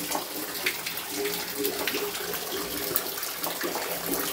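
Water running steadily and splashing from a leak that keeps flowing, with many small splashes throughout.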